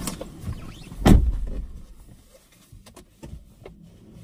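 A single loud thump about a second in, followed by a few faint clicks and rustles: handling noises inside a car cabin as someone reaches into the back seat.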